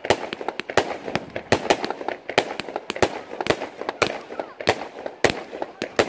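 Category 2 consumer firework module firing its shots in a rapid, uneven series of sharp bangs, two or three a second, each shot bursting into stars.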